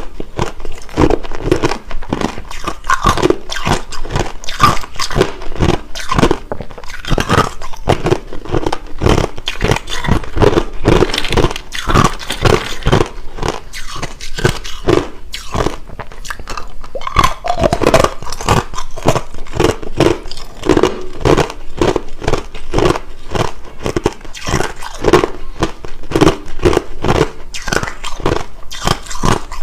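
Hard clear crushed ice being bitten and chewed, close to the microphone: a continuous run of crisp crunches, several a second, without pause.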